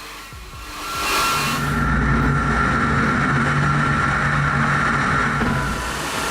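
Heavy machinery running steadily, with a steady whine over a low hum. It grows louder about a second in and eases slightly near the end.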